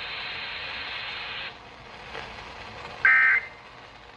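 Weather radio static hiss that cuts off about a second and a half in, then near the end a short, harsh buzzing data burst from the Emergency Alert System signal, the first of the end-of-message bursts that close the alert broadcast.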